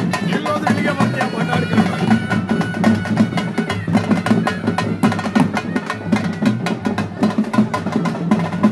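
Drums playing a fast, continuous rhythm of sharp strokes.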